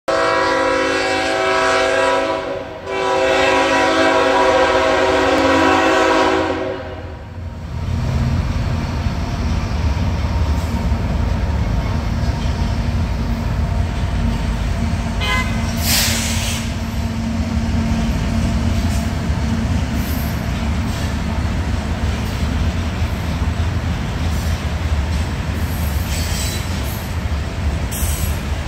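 Kansas City Southern diesel locomotive's air horn sounding two long blasts, a short break about two and a half seconds in. Then the locomotives and loaded covered hopper cars of a grain train rumble steadily past, with a brief high screech about halfway through.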